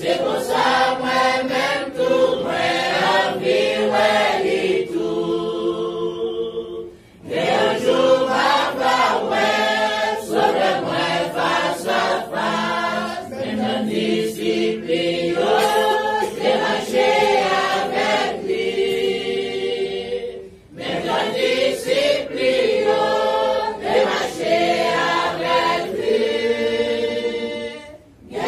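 A congregation singing a hymn together, in long phrases that end on held notes, with short breaks about 7, 20 and 28 seconds in.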